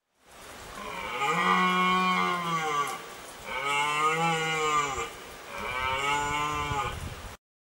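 Deer calling three times, each a long low call of about two seconds that rises and then falls in pitch, with short gaps between.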